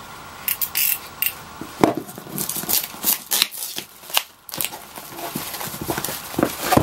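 Clear plastic wrapping being cut and pulled off a cardboard box, as a run of irregular sharp crackles and snaps.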